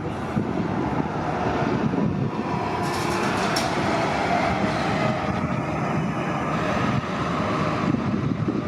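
City transit bus running close by, a steady engine and road rumble with a faint whine, and a short hiss about three seconds in.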